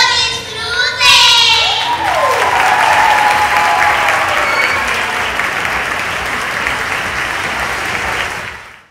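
Audience applauding steadily for several seconds, then fading out near the end. A high-pitched voice calls out over the first couple of seconds.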